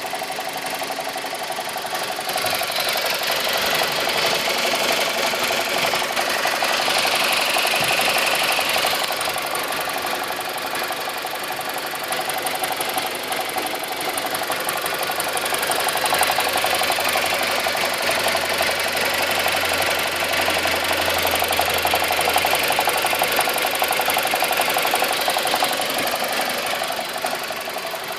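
BMW N42 four-cylinder petrol engine idling with a continuous rapid rattle, with idle revs that the owner says are too low.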